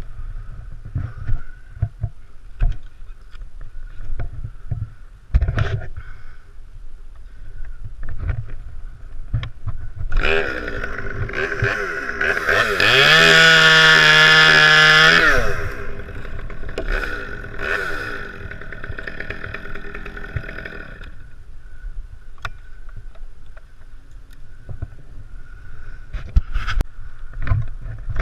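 Two-stroke chainsaw revving up to full throttle and holding it for about three seconds midway, then dropping back to a lower rev and dying away. Before that, scattered sharp knocks and clicks.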